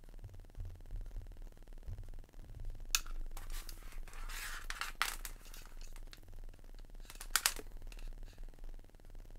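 Small cables and plastic plug connectors being handled: a few sharp clicks about three, five and seven and a half seconds in, with the rustle of a cable being pulled and untangled in between.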